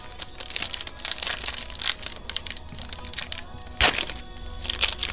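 Foil trading-card pack wrapper crinkling and crackling as it is torn open and handled, with a sharp loud crack about four seconds in.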